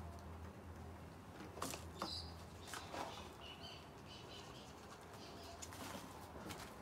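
Faint clicks and scratches of a thin stick working potting soil into a bonsai pot, with faint short bird chirps and a low steady hum behind.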